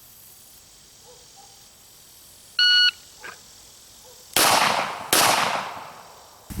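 A shot timer's short electronic start beep, then about 1.7 s later two pistol shots about three-quarters of a second apart: a double tap from a SIG Sauer P320 X5 Legion pistol fitted with an Armory Craft trigger.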